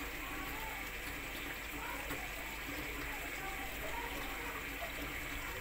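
Steady hiss from a stove with a pot of sweetened milk heating on it, just coming to the boil.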